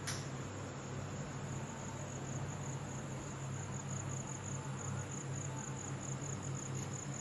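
Convection microwave oven running with a steady low hum, cooking a whole chicken at 160 degrees. Over it a cricket chirps in a fast, even, high-pitched pulse. There is one short click at the very start.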